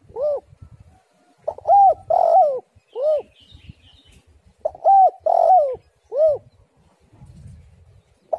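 Spotted dove cooing: the tail of one phrase at the start, then two full coo phrases a few seconds apart, each of three or four short rising-and-falling notes with a longer note in the middle.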